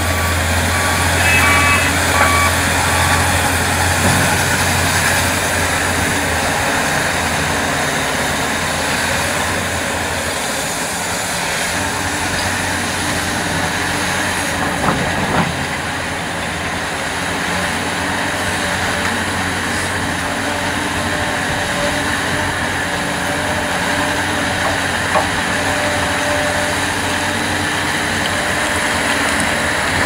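Large Hitachi hydraulic excavator running steadily while digging a trench, its engine and hydraulics working under load. A reversing alarm beeps several times in the first couple of seconds, and there are a few short knocks, the clearest about halfway.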